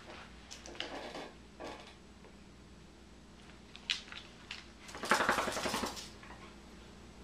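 A corgi's claws clicking on a hardwood floor as it walks onto a mat. About five seconds in there is a louder burst of rapid clicking and rattling that lasts about a second.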